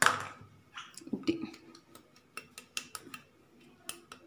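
A stainless steel cup dusted with flour is tapped and handled so the flour coats its buttered sides. There is a louder knock at the start, a brief metallic ring about a second in, then a run of light, quick metallic taps and clicks.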